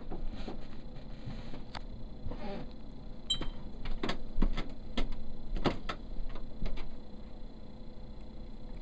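Camcorder being handled and its touchscreen tapped: a run of sharp clicks and knocks, with a short electronic beep about three seconds in as the playback controls come up.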